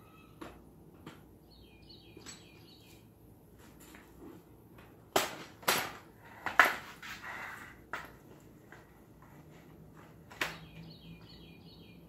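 Metal frame of a foldable chaise lounge chair clattering as it is lifted and opened out: a run of sharp knocks and clicks about five to eight seconds in, and one more knock near ten seconds. Birds chirp in the background.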